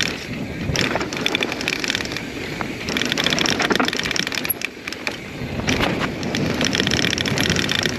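Mountain bike being ridden along a trail: tyre and frame rattle with wind on the microphone. Three times the rear freehub ticks quickly as the rider coasts.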